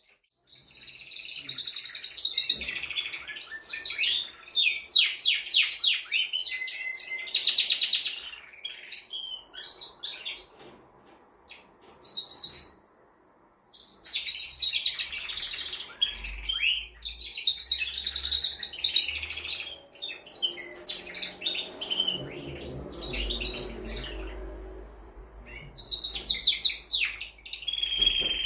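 Male canary singing long phrases of fast trills and rolling, warbling notes. It breaks off for a few seconds midway, then starts up again.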